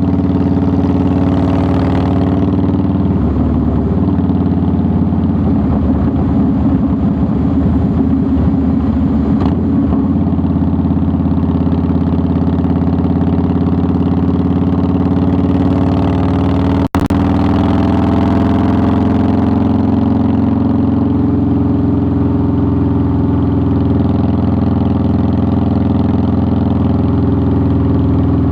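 2009 Harley-Davidson Softail Deluxe's Twin Cam 96B V-twin engine running steadily, with a choppier stretch a few seconds in. The sound cuts out for an instant just past halfway.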